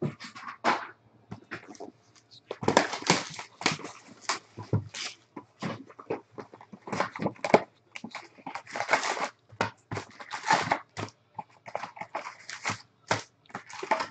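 Foil baseball card packs crinkling and rustling as they are gathered up and shuffled by hand, in a rapid run of short irregular crackles.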